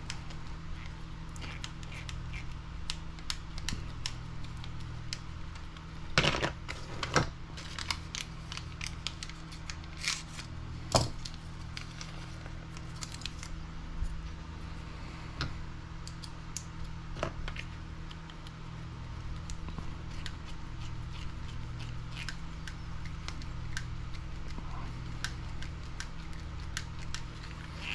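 Scattered small clicks and ticks of a hex driver and hard plastic RC buggy suspension arms being handled on a workbench, as droop screws are driven into the arms, with a few louder knocks of parts set down. A steady low hum runs underneath.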